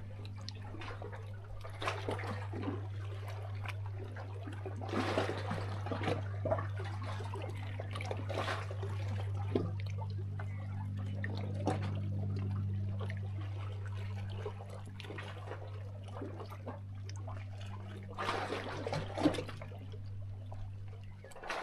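Small sea waves lapping and splashing against shoreline rocks, with irregular gurgles and trickles and louder splashing spells about five seconds in and again near the end. A steady low hum runs underneath.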